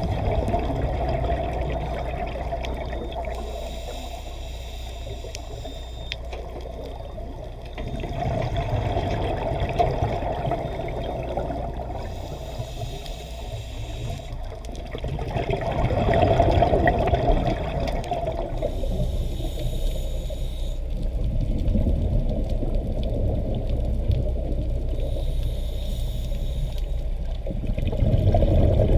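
Scuba diver breathing underwater through a regulator: several slow breaths, each a hissing inhale followed by a louder rush of bubbling exhaust bubbles.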